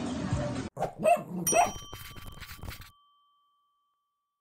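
End-card sound effect: a few short dog barks, then a bright chime ding that rings on and fades away.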